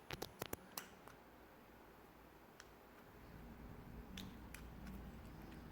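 A quick run of about five faint, sharp clicks in the first second, then near silence with a faint low hum and two more light ticks about four seconds in.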